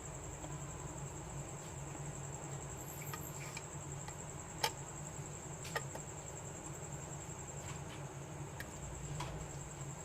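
A few sharp little clicks of small phone parts being handled and fitted together on a workbench, the loudest about halfway through, over a steady low electrical hum and a thin high-pitched whine.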